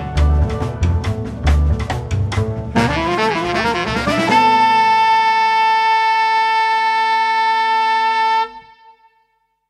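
Jazz quintet recording of soprano saxophone, bass clarinet, piano, double bass and drums playing its final bars. Drum hits and bass run under the saxophone, and a fast rising run about three seconds in leads into one long held closing note from the horns. The note is cut off about eight and a half seconds in and fades to silence.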